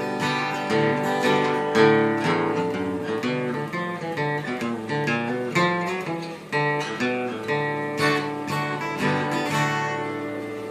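Acoustic guitar strummed as the closing instrumental after the last chorus of a gospel song, getting quieter near the end.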